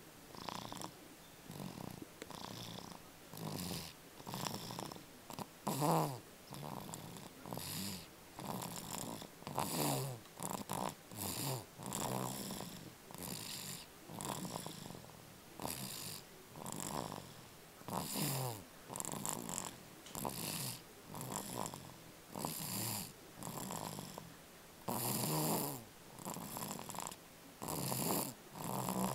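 Loud snoring in deep sleep, a snore on each breath, coming every second or two.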